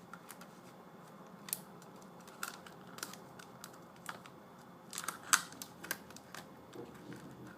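Scattered light clicks and taps of laptop screen parts being handled and fitted, about eight irregular ticks with the sharpest just past the middle.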